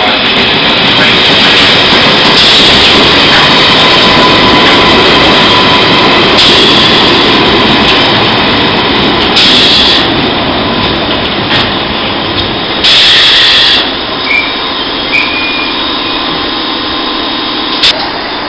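London Underground Metropolitan line A Stock train running into the platform: a loud rumble and rub of steel wheels on the rails. About 14 seconds in it eases to a steadier hum with a few short squeals.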